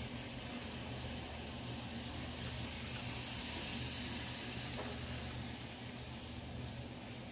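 Kato N-scale D51 steam locomotive model and its passenger cars running past on the track: a hissing rush of wheels on rail that swells to its loudest about four seconds in and then fades, over a steady low hum.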